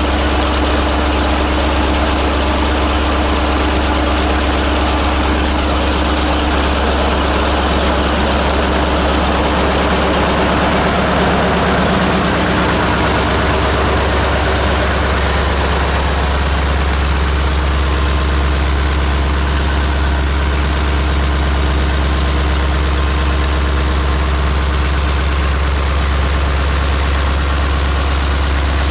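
1948 Buda 8-DC-1125 straight-eight diesel engine, 1125 cubic inches, running steadily at idle after a cold start, its sound strongest low down. The mid-range noise swells around the middle and then thins out.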